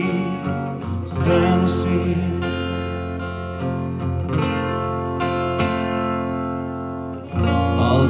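Acoustic guitar strumming chords that are left to ring, with a male voice singing a held word about two seconds in; the playing picks up again near the end.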